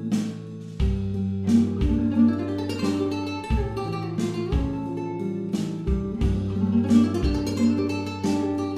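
Background music: acoustic guitar playing a run of plucked notes and strummed chords over ringing low bass notes.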